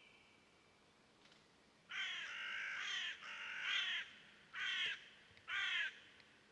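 A crow cawing: four harsh calls starting about two seconds in, the first two long and the last two short.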